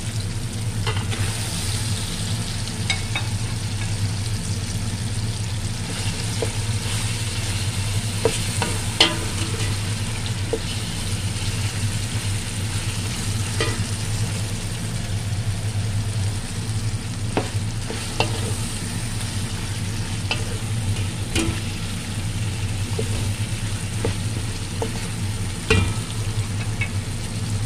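Raw chicken pieces being stirred into a sizzling tomato and onion base in a metal pot with a spatula: a steady frying sizzle over a constant low hum, broken by a few sharp knocks of the spatula against the pot.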